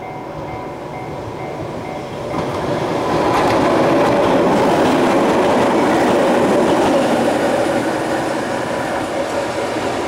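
Level-crossing warning bell ringing steadily while a Keihan Ishiyama-Sakamoto Line train runs past close by. The train is loud from a little over two seconds in and eases off near the end.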